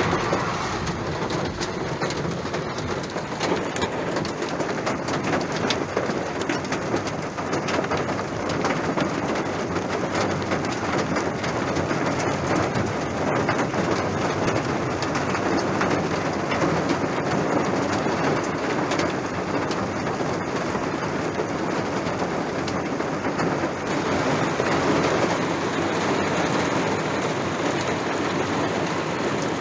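Heavy thunderstorm rain mixed with hailstones coming down hard: a steady dense hiss full of small rapid hits.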